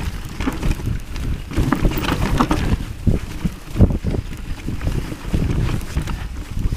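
Mountain bike descending a rough dirt forest trail: tyres rumbling over dirt and roots, with frequent knocks and rattles from the bike, and wind on the microphone.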